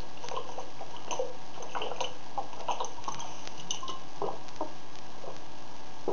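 Gulps and swallows of water drunk from a plastic water bottle, with small clicks and crinkles from the bottle, over a steady hiss.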